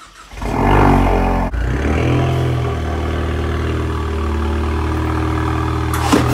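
Ford Mustang engine starting with a short rev flare that settles, then running steadily at low revs. A brief thump comes near the end.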